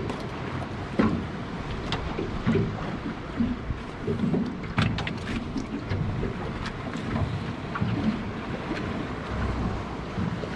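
Wind on the microphone and water slapping against a fishing boat's hull, with uneven low thumps and a few sharp clicks and knocks.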